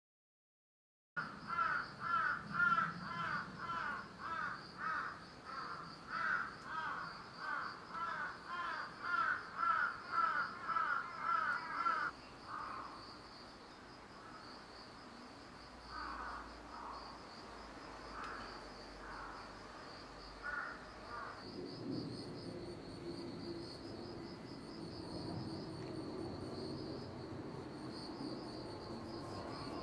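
Garden ambience: a bird calls in a quick, even series of harsh, crow-like caws, about two a second, then only a few scattered calls after about twelve seconds. A steady high insect chirring runs underneath, and a low hum comes in about two-thirds of the way through.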